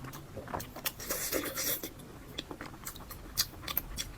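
Close-miked eating sounds: chewing with wet mouth clicks and smacks, and a short hissing, crackly burst about a second in.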